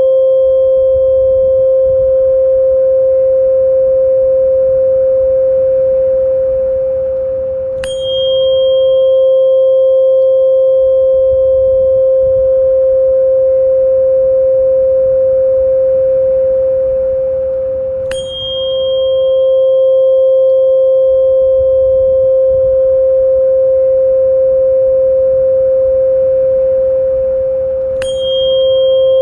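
A tuning fork ringing with a steady mid-pitched tone, struck again about every ten seconds, three times. Each strike gives a short metallic tap and a bright high overtone that fades quickly, then the tone swells and slowly dies down without stopping before the next strike.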